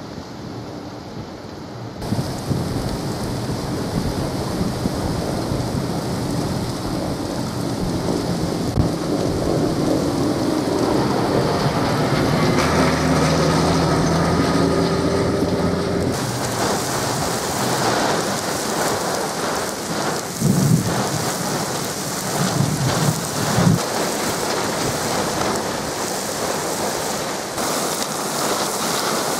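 Thunderstorm gust front: strong gusty wind buffeting the microphone, building a couple of seconds in, with a tractor engine passing by in the middle. From about halfway on, heavy wind-driven rain hisses down in dense sheets.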